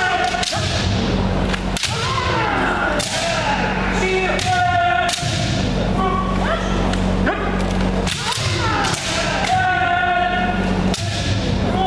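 Kendo sparring: bamboo shinai cracking against armour and each other, with foot-stamp thuds, every second or two. Drawn-out kiai shouts from several fencers mix in, all echoing in a large gym. A steady low hum runs underneath.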